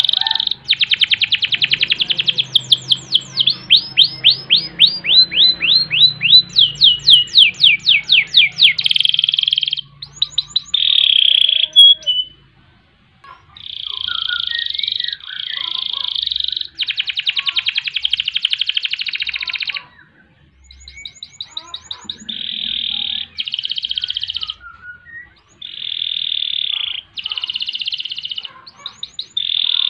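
Domestic canary singing a long song of fast rolling trills and runs of repeated sweeping notes, in phrases of a few seconds broken by short pauses.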